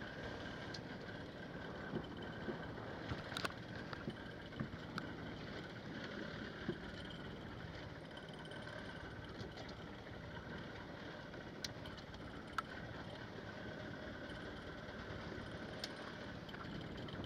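Steady drone of a fishing boat's engine with water noise, broken by a few short, scattered knocks and clicks.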